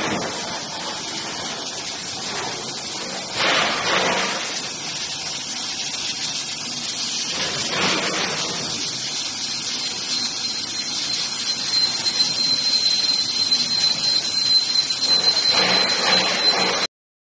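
CNC tube-sheet drilling machine's spindle drilling holes in a tube sheet under coolant spray: a steady hissing cutting noise with brief louder surges, and a thin, high, steady squeal joining about ten seconds in. It cuts off suddenly near the end.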